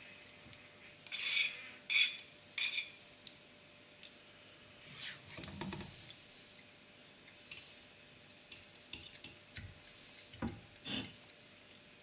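Metal fork and spoon clinking sharply against a china plate three times, then scraping softly through thick tomato sauce in a pan, followed by light taps and a couple of dull knocks as food is served.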